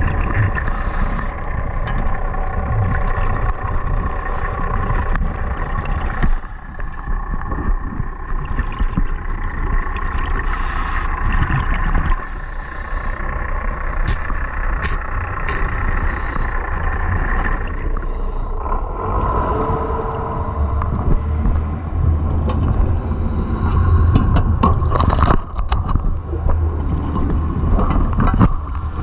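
Underwater recording of a boat's motor humming steadily overhead, with a deep rumble that grows stronger about two-thirds of the way through. A scuba diver's breathing bubbles hiss every few seconds over it.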